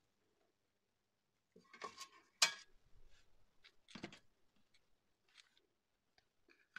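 Quiet food-handling sounds: a few light clicks and rustles, with one sharp tap about two and a half seconds in, as bacon-wrapped white asparagus stalks are laid into a perforated stainless-steel steamer tray.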